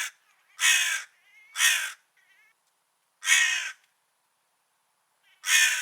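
Crow cawing: a run of harsh, separate caws, each about half a second long, two close together early on, one after a pause of over a second, and another near the end.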